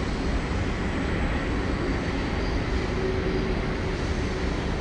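Freight train rolling across a steel trestle bridge, a steady, unbroken rumble of wheels and cars heard from across the canyon.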